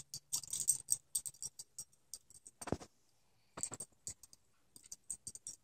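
Scattered light clicks and faint metallic jingling as a puppy in a harness darts about after bubbles, with a couple of short, slightly louder noises about halfway through.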